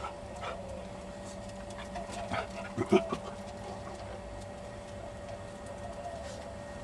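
American cocker spaniel giving a few brief, soft whimpers about two to three seconds in, over a faint steady hum.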